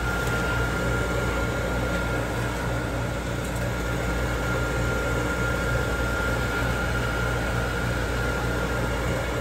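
Steady mechanical hum and hiss of running machinery, with a thin high whine held throughout.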